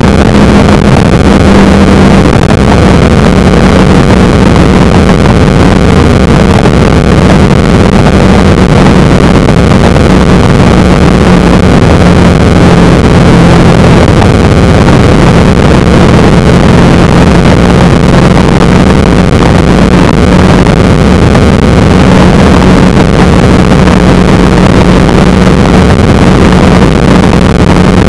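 Motorcycle engine running steadily at cruising speed, its hum holding near one pitch, under heavy wind and road noise on the bike-mounted dashcam's microphone; very loud and close to clipping.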